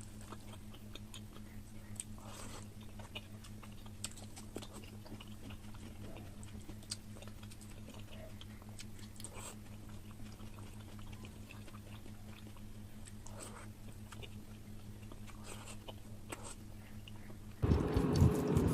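Close-miked eating sounds of someone chewing mutton curry: soft, scattered wet smacks and clicks over a steady low hum. About a second before the end, a much louder rushing noise cuts in suddenly.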